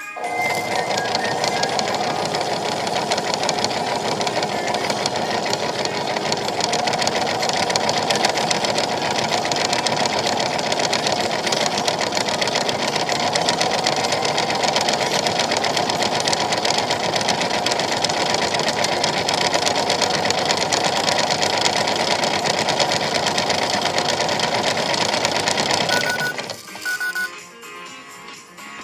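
Battery-powered toy washing machine running its cycle: a small motor whirring steadily as the drum turns, cutting off abruptly after about 26 seconds, followed by two short beeps.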